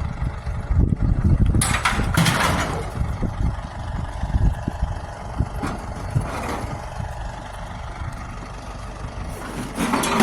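Truck engine running as a low rumble, with frequent short knocks and rattles and a few louder noisy bursts, about two seconds in, around six seconds and near the end.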